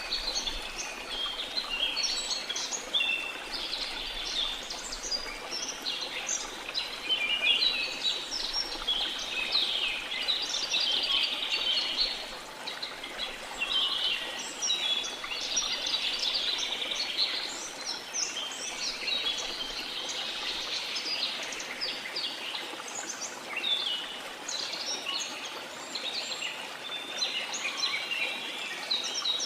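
Many birds chirping and singing at once in a tropical rainforest, their calls overlapping without a break, over the steady rush of a waterfall.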